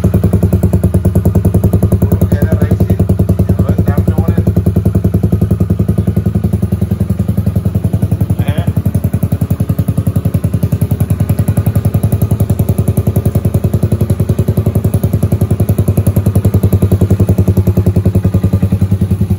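Italika 150cc single-cylinder four-stroke motorcycle engine idling steadily through a newly fitted ED Racing aftermarket sport exhaust, an even, low pulsing exhaust note.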